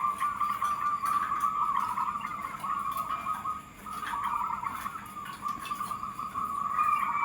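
Zebra dove (perkutut) cooing in a trilled, warbling run of coos, dropping away briefly a little past halfway.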